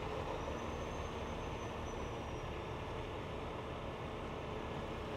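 A vehicle engine running with a steady low hum, and a faint high whine in the first half.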